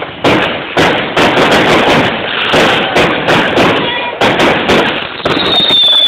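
Garden fireworks going off in a quick string of sharp bangs, about two a second, with crackling between them. About five seconds in, a high, steady firework whistle sets in.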